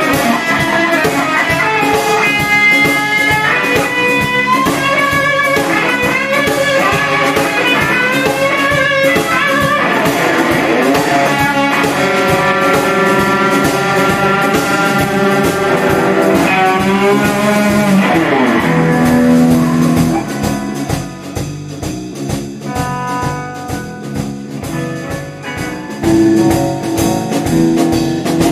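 Band music with a lead guitar playing bent, wavering notes over a steady beat. It drops to a quieter passage about twenty seconds in.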